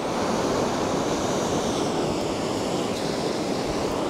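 Steady rushing of sea surf washing on the shore, with some wind.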